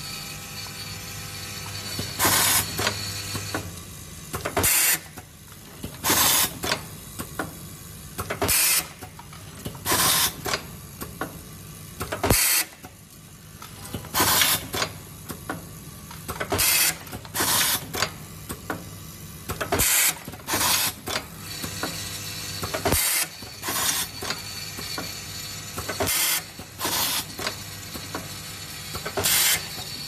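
HR-USB01 USB cable crimping and soldering machine running: short sharp hisses of air from its pneumatic cylinders come every second or two, over a steady low hum typical of its vibratory bowl feeder.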